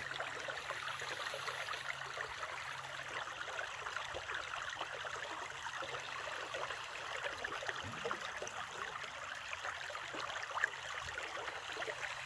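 A small creek trickling and babbling steadily over stones and a low drop.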